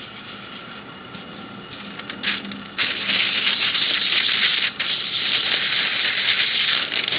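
A cloth rubbed by hand over an inked copper drypoint plate, wiping off the surface ink: soft scuffing at first, then a steady scrubbing hiss from about three seconds in, with a brief break near the middle.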